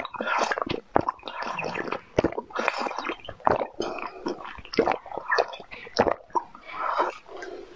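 Close-up wet slurping and sucking of a liquid through the spout of a glass vessel, in repeated surges of about half a second to a second each, with sharp mouth clicks between them.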